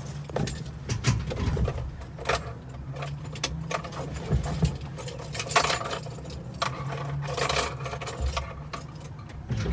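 Ignition keys jangling, with a run of sharp clicks and rattles as the key is worked toward the glow position, over a steady low hum.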